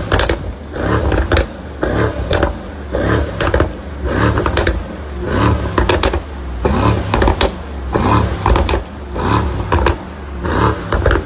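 2019 Mercedes-AMG GT 63 S's twin-turbo V8 being revved in repeated short blips, about one a second, with sharp cracks from the exhaust between the blips.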